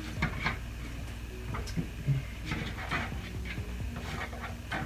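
Scattered light clicks and taps as salt and pepper are shaken onto raw chicken wings, over a low steady hum.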